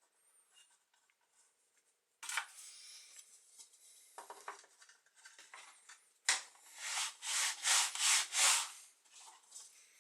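A boilie rolling table pushed back and forth over soft dough sausages, rolling them into round baits, makes a scraping, rubbing sound. It starts about two seconds in, and in the second half comes a quick run of louder strokes, about two a second.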